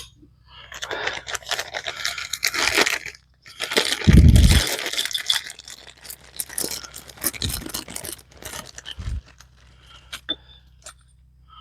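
SU carburettor parts being handled and fitted on a workbench: rustling and scraping, a heavier thump about four seconds in, then scattered light metal clicks and clinks.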